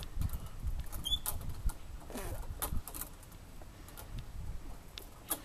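A wooden backyard swing set creaking and squeaking as a boy swings back and forth, with short clicks from the swing hangers about every second and a half, over a low rumble.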